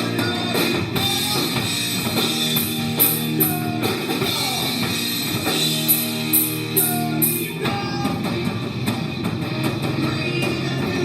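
Rock music: electric guitars and a drum kit playing steadily.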